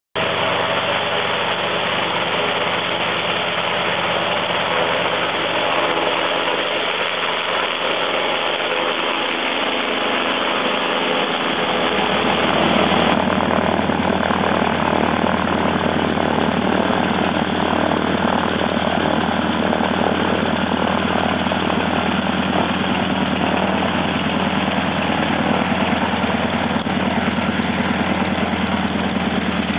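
Single-engine floatplane's piston engine running steadily while the plane taxis on the water. About twelve seconds in it grows fuller and a little louder.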